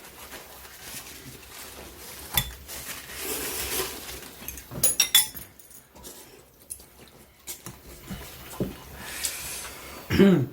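Cutlery clinking against dishes now and then during a ramen meal, with a cluster of quick clinks about halfway through and a short voice sound near the end.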